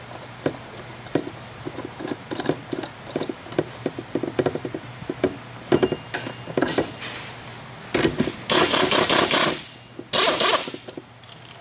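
Small metallic clicks and clinks as an armature puller is fitted and threaded onto an A/C compressor clutch hub. Then an air ratchet runs in several short bursts in the second half, the longest about a second and a half, driving the puller's centre bolt to draw the hub off the shaft.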